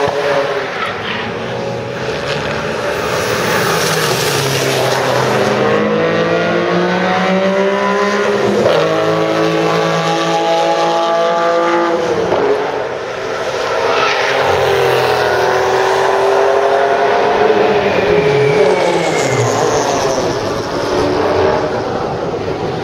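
Porsche race car engines at high revs passing on track. Their pitch climbs through a series of upshifts, with more than one car heard overlapping, and about two thirds of the way in the pitch drops as one car slows and downshifts.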